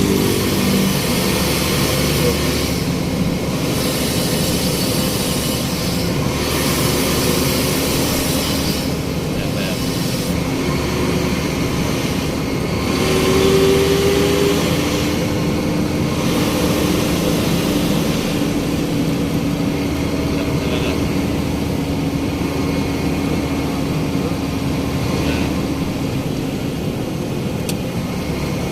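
Heavy truck engine running steadily, heard from inside the cab, with a steady low hum and hiss that comes and goes every few seconds.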